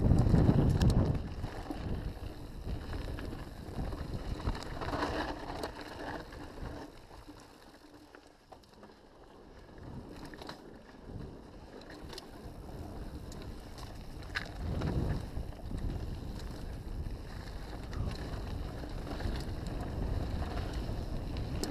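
Mountain bike descending fast over dirt and grass: tyres rolling, the bike rattling and knocking over bumps, and wind rushing over the microphone. The rush is loudest at the start, drops for a slower stretch about a third of the way in, then builds again.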